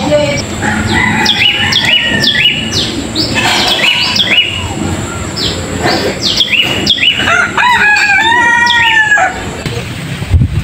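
A rooster crowing once, one long call near the end, over small birds chirping in quick, repeated downward chirps.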